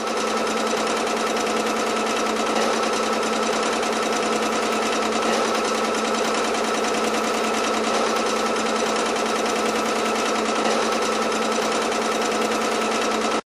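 Singer domestic sewing machine running at a steady, even speed, its needle stitching rapidly in free-motion work with a darning foot and the feed dogs lowered. A continuous, even mechanical hum with a steady pitch.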